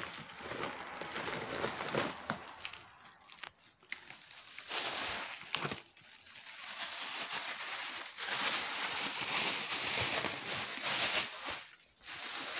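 Plastic crinkling and rustling as a sack of rice is pushed and shuffled down into a large plastic bag. It comes in several long bouts, loudest in the second half.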